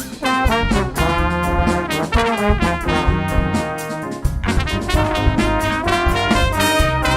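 A band playing: brass instruments hold sustained notes, several together, over a drum kit keeping a steady beat.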